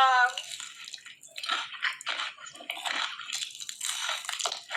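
Someone eating: wet chewing and squishing mouth sounds in a run of irregular short smacks.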